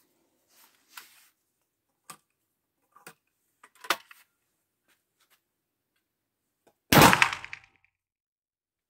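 A few faint clicks and knocks, then a shotgun fires twice about two seconds apart, the first shot about seven seconds in and the second right at the end. Each shot rings on in the enclosed indoor range.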